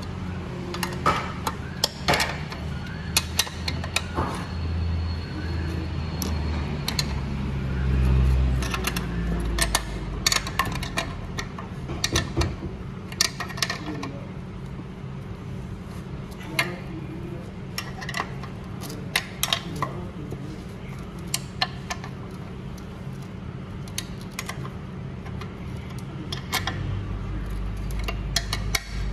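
Light metallic clinks and taps, scattered irregularly: a steel combination spanner and bracket nuts knocking against the steel mounting bracket and pressed-steel shell of a new vacuum brake booster as the bracket nuts are fitted and tightened by hand.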